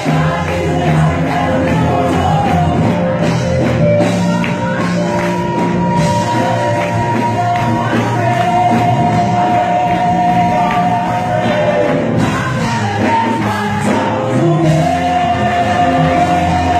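Live gospel music from a church choir and band, with a woman singing lead into a microphone. She holds a long note about halfway through.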